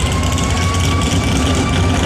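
Pulling truck's engine running steadily with a deep low rumble, a thin high whine holding steady above it.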